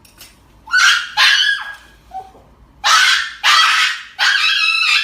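Dog screaming in fright while held for an injection that has not yet been given: five loud, harsh cries in quick succession, the first about a second in.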